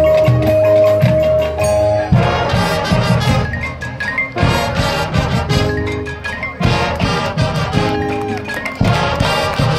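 Marching band playing its field show: brass with front-ensemble mallet percussion (marimba, xylophone). A held note opens, then the full band comes in about two seconds in with chords that swell and fall back roughly every two seconds.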